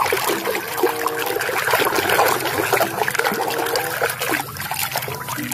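Water trickling and splashing as a muddy plastic toy is washed and scrubbed by hand, with small knocks and clicks of the toy being handled.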